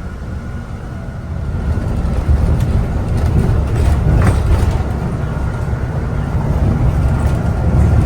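City bus engine and road noise heard from inside the bus: a steady low rumble that grows louder about two seconds in as the bus gets moving.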